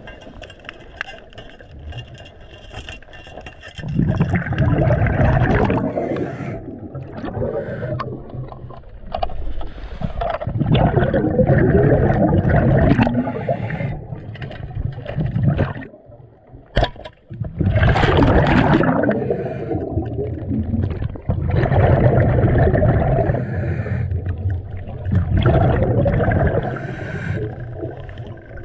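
Underwater gurgling from a diver's exhaled bubbles, in surges of two to three seconds that come every few seconds with quieter breaks between.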